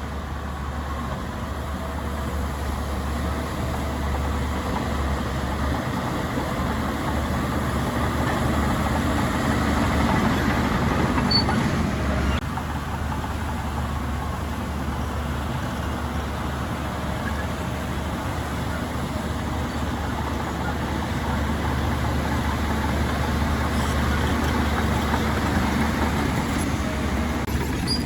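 Heavy diesel earthmoving machine running steadily with a low engine hum; the sound shifts slightly about twelve seconds in.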